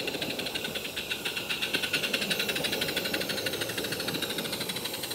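16mm-scale live-steam 0-4-0T locomotive (Roundhouse Billy chassis, Lady Anne boiler) running past with a rapid, even chuffing exhaust beat. It grows a little louder midway and eases off toward the end.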